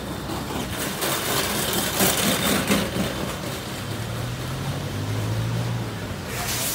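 Street traffic with a vehicle engine idling close by, its low hum strongest in the second half. Rustling and rubbing from the phone being handled against clothing in the first few seconds.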